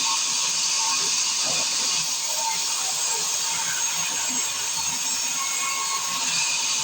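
Sawmill circular saw running, a steady high-pitched machine noise.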